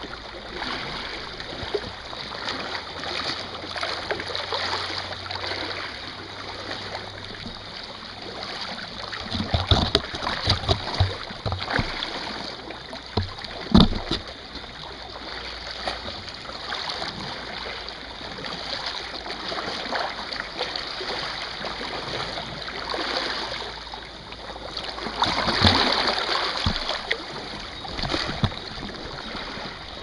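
Small sea waves washing over and around a low rock ledge, sloshing and splashing in surges every few seconds. A sharp thump stands out about halfway through.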